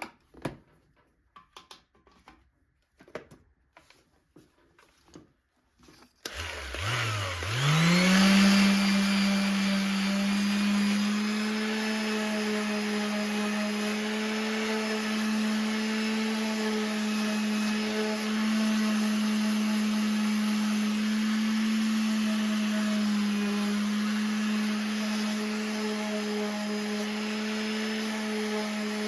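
A few light knocks of handling, then about six seconds in an electric power tool motor switches on, spins up over about two seconds and runs at a steady pitch.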